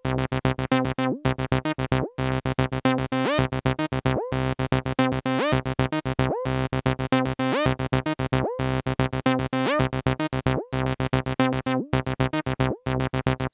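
MAM MB33 analog bass synthesizer, a TB-303 clone, playing a repeating sequenced acid bassline of short notes with pitch slides. Its decay knob is being turned, so the notes grow longer and fuller in the middle and shorten again near the end.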